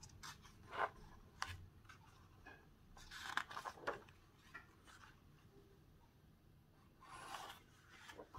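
Pages of a paper booklet turned and handled, a few short papery swishes with the loudest about three seconds in.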